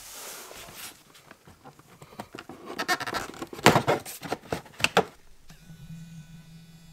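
Plastic under-dash cover panel being handled and pulled free: rustling, then a quick series of plastic clicks and snaps as it is pried off its clips, two of them louder than the rest. A steady low hum comes in near the end.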